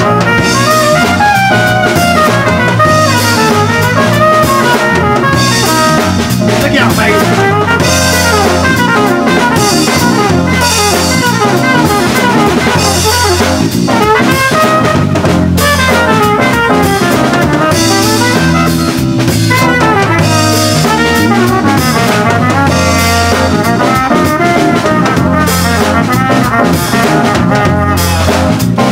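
Jazz trumpet playing a melodic solo line over a drum kit with cymbals and a bass line.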